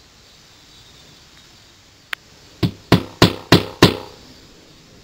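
Hammer driving a tack through a fresh goat skin into wooden wall siding: one light tap about two seconds in, then five sharp blows at about three a second.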